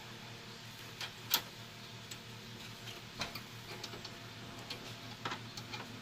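Light clicks and taps of a graphics card's metal bracket and board against a desktop computer's case and slot as the card is worked into place, with one sharper click about a second and a half in and a run of quicker ticks near the end, over a low steady hum.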